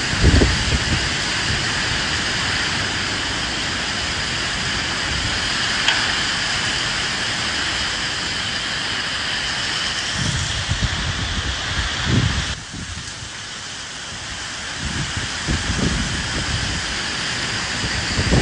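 Steady rain with low gusts of wind rumbling in every few seconds; the rain thins briefly about two-thirds of the way through.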